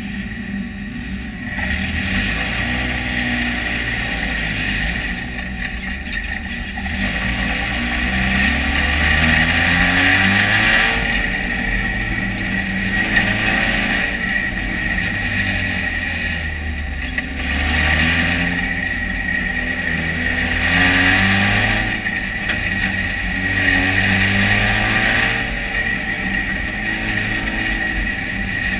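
Dirt-track race car's engine heard from inside the cockpit, revving up and easing off again every few seconds as the car accelerates and lifts around the track, with a steady high whine running under it.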